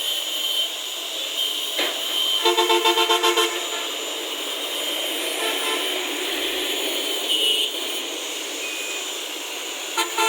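Road traffic noise with a vehicle horn sounding a rapid series of short toots about two and a half seconds in, and starting again near the end.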